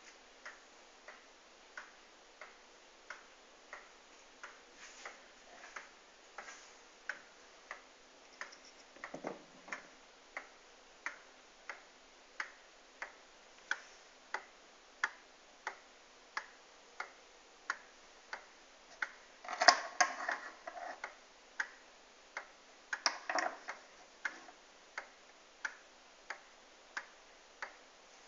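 Ansonia Queen Anne pendulum wall clock ticking steadily, about three ticks every two seconds. Two brief louder noises come partway through.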